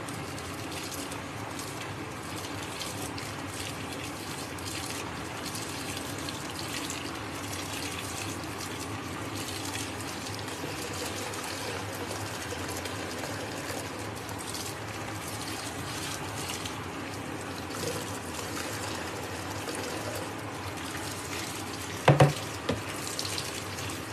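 Water and sudsy clothes churning steadily in a top-load washing machine's drum as it agitates. Near the end there are two or three short, sharp, loud sounds.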